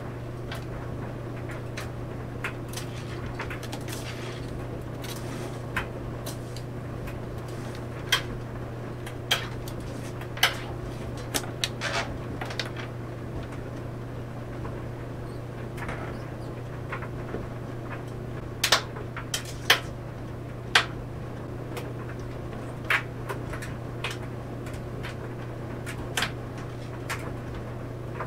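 Clothes dryer running with a steady low hum, laundry tumbling in the drum with irregular clicks and knocks, the sharpest ones bunched about two-thirds of the way through.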